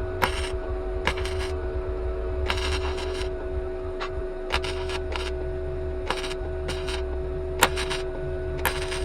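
Flux-core wire welder laying short tack welds on car body sheet metal: about ten brief bursts of arc noise, each under half a second, at uneven gaps, over a steady hum.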